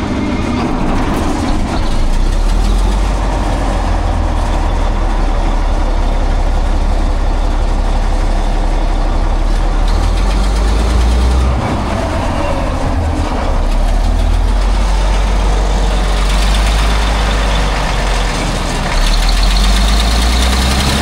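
Cat C15 six-cylinder turbo diesel running just after start-up, with a steady low rumble that swells and eases a few times and is loudest near the end. It has bad exhaust manifold leaks, which the owner takes for the cause of its low boost and low power.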